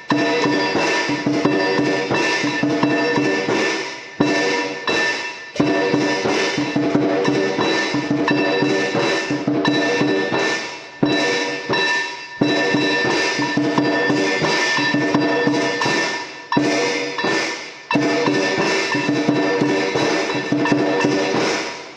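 Background music with dense, fast percussion clicks over sustained tones, dipping briefly every few seconds.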